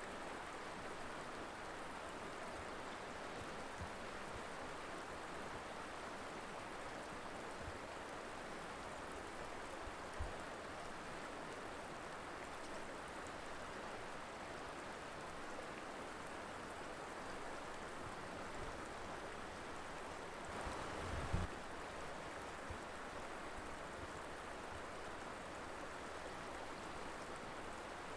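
Mountain river flowing in a steady, even rush of water. Brief low thumps come about ten seconds in and again around twenty-one seconds, the second the loudest moment.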